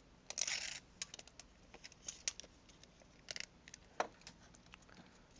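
Light clicks, ticks and a short rustle of small metal pieces being handled on the jeweler's bench, scattered unevenly, with one sharper click about four seconds in.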